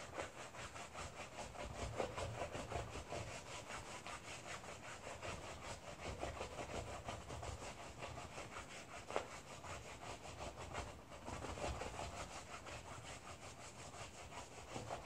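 Wool-wrapped bar of soap rubbed back and forth by hand across a ridged tray, a faint, steady, rhythmic wet scrubbing as the wool is worked into felt.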